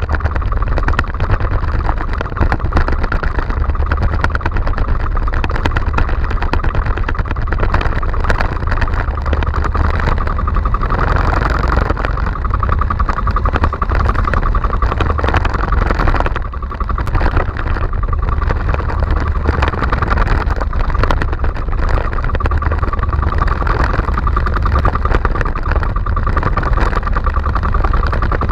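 Small outrigger fishing boat's engine running steadily at sea, with a brief dip in loudness about halfway through.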